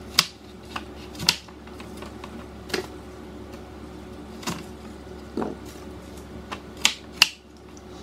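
Irregular sharp knocks and clicks of a knife cutting peeled apples on a cutting board, about a dozen spread unevenly, the two loudest close together near the end.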